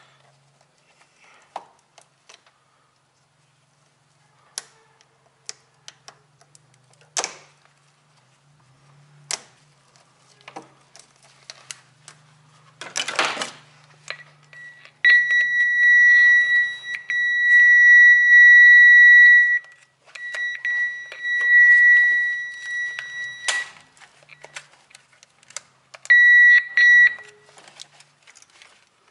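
Multimeter continuity tester beeping, which signals an unbroken connection between the probes while a wire is rung out: one steady high beep held about five seconds, a brief break, another of about three and a half seconds, and a short one near the end. Before the beeps come scattered clicks and a rustle of wiring and probes being handled.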